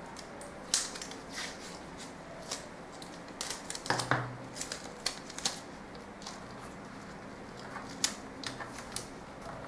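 Paper pattern pieces and a clear plastic ruler handled on a tabletop: scattered light clicks, taps and paper rustles, busiest about four to five seconds in and again near eight seconds.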